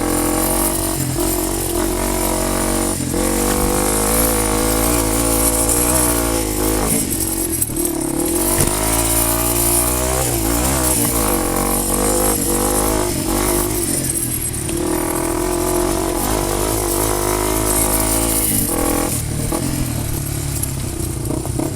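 Off-road vehicle engine running and revving, its pitch repeatedly rising and falling.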